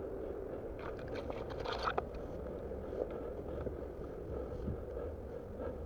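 Footsteps crunching and brushing through long dry grass, with soft rustling and scraping, thickest about a second in.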